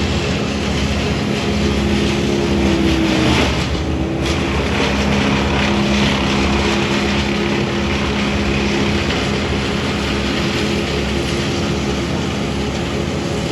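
A motor engine running steadily with a constant hum. Its pitch dips briefly about three and a half seconds in.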